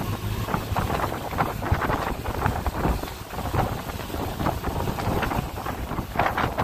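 Wind buffeting the microphone from a moving open safari canter, with the vehicle's engine and road noise rumbling underneath.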